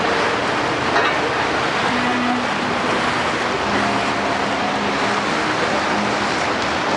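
Steady rushing noise aboard a Bateau Mouche tour boat underway on the Seine at night, the wind and water of the moving boat over its engine, with a brief click about a second in.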